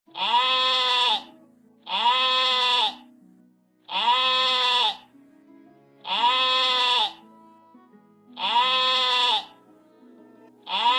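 A sheep bleating: one bleat about a second long, repeated identically roughly every two seconds, six times.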